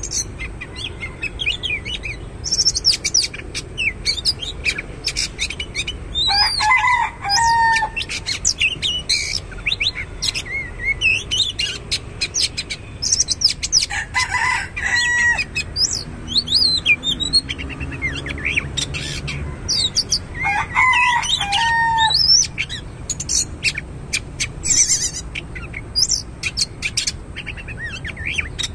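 Oriental magpie-robin singing: a varied, continuous song of whistles and quick chirps, with three longer, lower phrases coming roughly every seven seconds.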